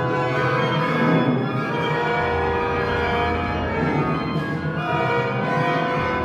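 Modernist orchestral music: a dense mass of many held tones sounding together in a thick cluster, with low notes swelling from about two seconds in.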